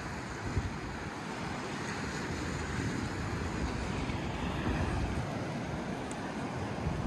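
Small ocean waves washing over a rocky shoreline in a steady hiss of surf, with wind buffeting the microphone in low rumbles.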